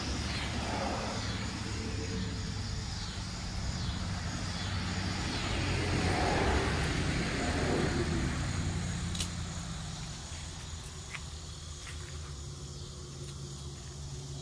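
A road vehicle passing by, rising to its loudest about six to eight seconds in and then fading, over a steady low traffic hum. Insects chirr over the first few seconds.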